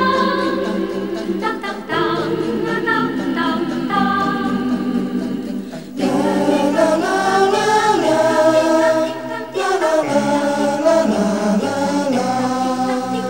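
Television theme-song music with a choir singing. About six seconds in it turns suddenly fuller and louder.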